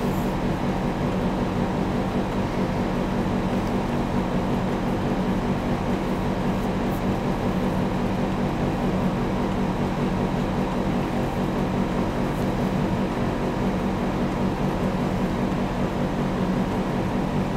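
Steady mechanical hum with a low drone, unchanging throughout and with no distinct clicks.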